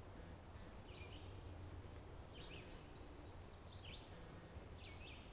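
Faint songbird chirps in woodland, short high calls repeating about once a second, over a steady low background hum.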